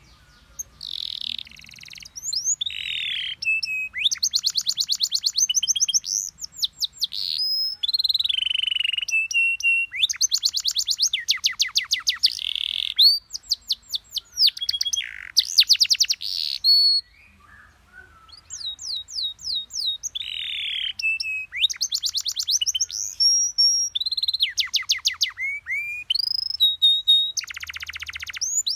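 Domestic canary singing a long varied song of rapid trills of repeated notes, fast rolls and clear whistled notes, in phrases broken by brief pauses, the longest about 17 seconds in. It is a tutor song (masteran) meant for young canaries to copy.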